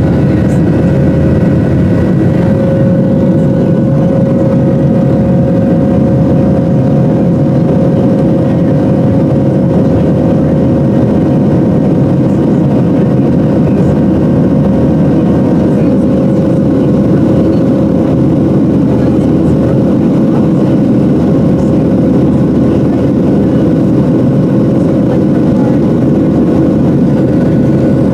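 Boeing 737-700's CFM56-7B turbofan engines heard from inside the cabin: a loud steady roar with several steady whining tones, some of which fade or shift partway through.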